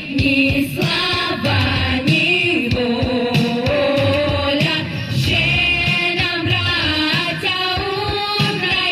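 Vocal ensemble singing a song in female voices, with an instrumental accompaniment that has a steady beat.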